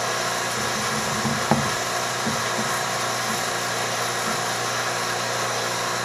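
A 7 CFM HVAC vacuum pump running steadily, pulling a deep vacuum on a small glass jar of water. A faint tick comes about a second and a half in.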